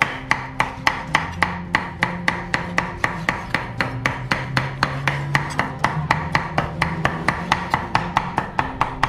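Cleaver mincing goose meat and offal on a chopping board, rapid steady chops at about five or six a second, for the filling of goose blood pudding.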